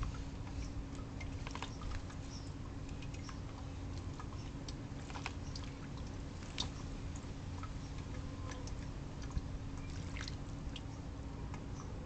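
Light, irregular splashing, drips and small ticks of water as house sparrows bathe in a shallow plastic bird bath, over a steady low hum.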